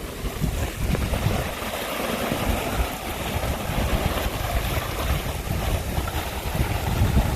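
Wind gusting on the microphone with a low rumble, over a steady rush of sea water.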